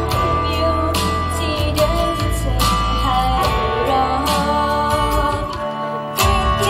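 A female singer singing live into a handheld microphone over a pop backing track with a steady beat. Near the end the bass drops out for a moment, then the full beat comes back in.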